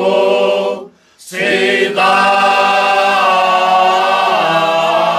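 A cante alentejano choir of men's and women's voices singing unaccompanied in slow, long held notes. The voices break off together for a breath about a second in, then come back in and hold the line again.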